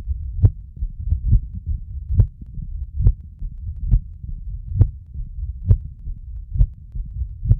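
Recorded heart sounds of mitral stenosis: a sharp, loud first heart sound just over once a second, with a low rumbling mid-diastolic murmur filling the gaps between beats.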